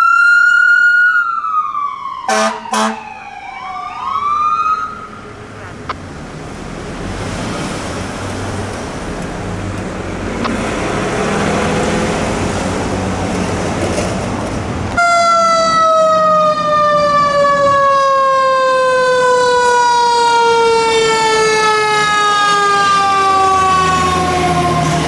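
An ambulance siren wails and falls away, cut by two short horn blasts and a few quick rising siren chirps, then traffic and engine noise as emergency vehicles pass. From just past halfway a fire engine's mechanical siren winds down in one long, slowly falling tone over its diesel engine's rumble.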